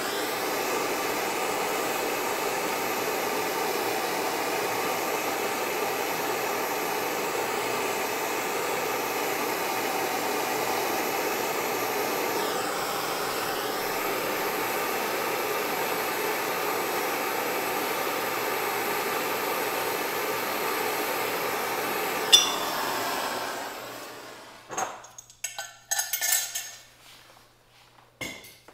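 Hand-held propane torch burning with a steady hiss as it heats a seized lantern fuel valve to free it. About 22 seconds in there is a sharp click, the flame dies away, and a few light metal clinks follow.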